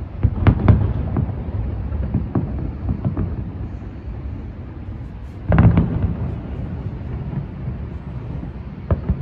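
Distant aerial fireworks shells bursting in a run of booms and pops over a steady low rumble, the loudest flurry about five and a half seconds in.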